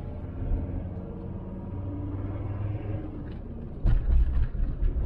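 Cab noise inside a VW T4 Transporter van on the move: steady engine and road hum, its pitch rising slightly. About four seconds in, it turns into a louder, rougher rumble.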